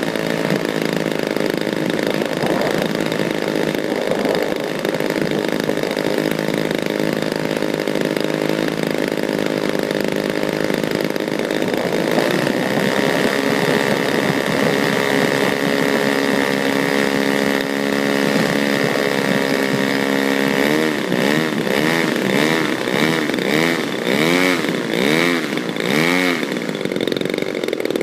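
DLE 55 RA single-cylinder two-stroke gas engine of an RC Sbach model plane running. Its pitch holds steady for most of the time, then rises and falls over and over during the last several seconds.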